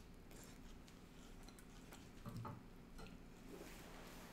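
Near silence with faint ticks and clicks of a mouth chewing a bite wrapped in lettuce, and a brief low sound a little over two seconds in.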